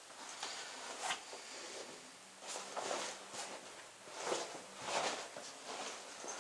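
A bag being handled, making a series of rustling, zipper-like scrapes and swishes, each lasting a fraction of a second.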